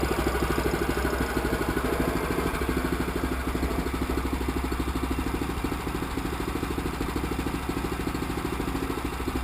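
Small gas engine of a portable band sawmill running steadily, with an even rapid firing pulse.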